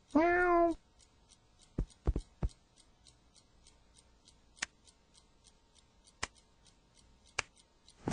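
A domestic cat meows once, a short call that rises and falls. Afterwards come several sharp, scattered clicks over a faint, regular ticking of about three ticks a second.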